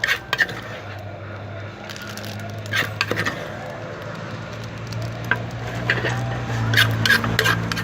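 Irregular clinks and knocks of a pestle and spoon working papaya salad in a mortar, with the strikes coming thick and fast near the end.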